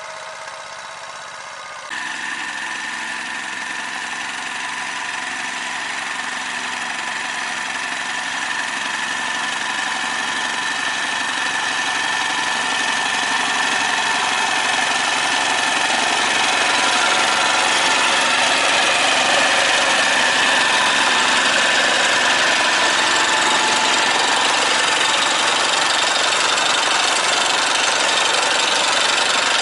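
Walk-behind tractor's engine running steadily under load as it pulls a potato digger through the soil. It jumps up in level about two seconds in, then grows steadily louder as the machine comes closer.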